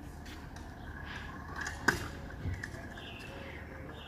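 A freestyle kick scooter striking the pavement with one sharp clack about two seconds in, followed by a smaller knock, over a steady outdoor hiss.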